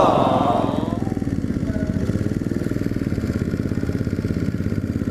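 Yamaha XT250's single-cylinder four-stroke engine running at steady, low revs as the bike rolls along.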